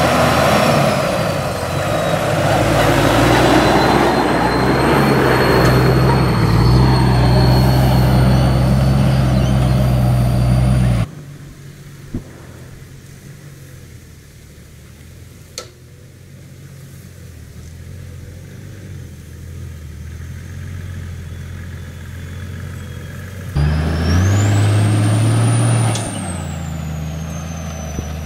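Toyota Land Cruiser HZJ105's 1HZ diesel straight-six working slowly over a rough dirt track in low gear, heard from outside the vehicle. The engine is loud for the first ten seconds or so, then drops suddenly to a faint, distant running with a couple of sharp knocks, and comes back loud about two-thirds of the way through.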